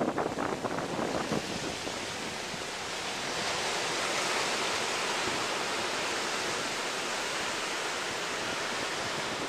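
Ocean surf breaking and washing up a sandy beach: a steady rushing hiss that swells about three seconds in. Wind buffets the microphone in the first second or so.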